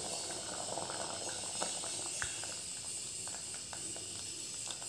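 Food cooking on the stove: a steady hiss with scattered faint crackles and pops of something sizzling or bubbling in a pan.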